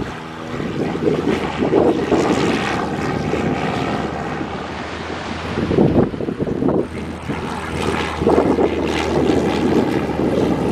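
Single-engine Cessna light plane's piston engine and propeller at full takeoff power as it lifts off and climbs, a steady droning buzz.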